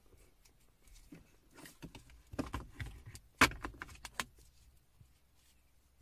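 A thick stack of car-wash cards being picked up and handled: a run of short clicks and rustles, the sharpest about three and a half seconds in.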